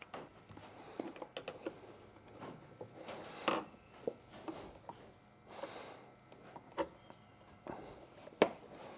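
Faint handling sounds of someone working at a roof rack crossbar's end cap: scattered light clicks, taps and scrapes, with a brief rustle about three and a half seconds in and a sharper tap near the end.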